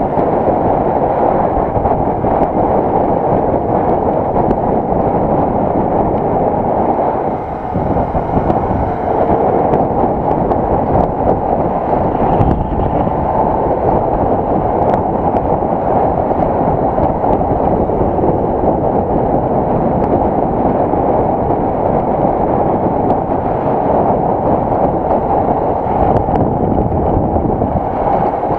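Steady wind rush buffeting the microphone of a motorcycle riding at road speed, a loud, even, low rumbling noise that dips briefly about seven seconds in.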